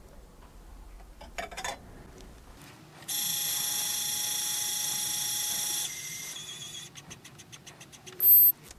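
Lyman Gen6 electronic powder dispenser throwing a charge into its scale pan, heard sped up. About three seconds in, a steady motor whine starts as it dispenses fast, then drops to a quieter trickle and a run of rapid clicks as it tops up the last grains. It ends with a short loud beep as the charge is finished.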